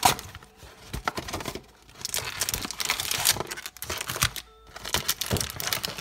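Foil-wrapped football card packs crinkling and rustling as they are lifted out of an opened cardboard hobby box, with a few light clicks and knocks of the cardboard being handled.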